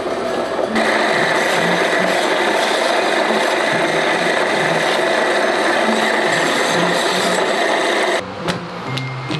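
Leopard bell-knife skiving machine running, its rotating blade shaving down the edge of a shoe-upper piece as it is fed through. A steady, high-pitched mechanical noise that starts about a second in and cuts off abruptly near the end.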